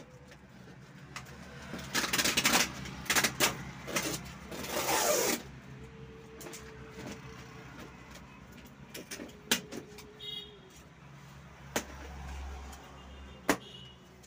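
Packaging being handled while parts are unpacked: a few seconds of loud rustling and scraping, then a few scattered sharp knocks.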